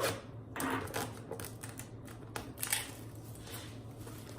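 Trading-card packaging being handled: several light clicks and rustles from boxes and a hard plastic card case.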